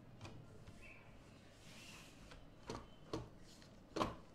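Computer mouse clicking: three sharp clicks in the second half, the last one the loudest.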